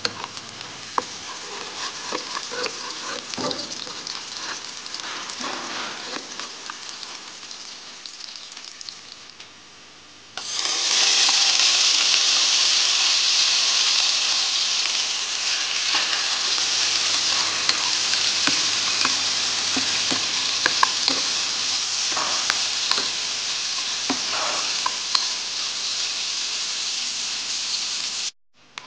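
Minced garlic and chili flakes sizzling gently in oil, with the clicks and scrapes of a silicone spatula stirring in the pot. About ten seconds in, a much louder, brighter sizzle starts as carrot sticks, broccoli and green pepper fry in the hot oil, with occasional stirring clicks; it cuts off abruptly near the end.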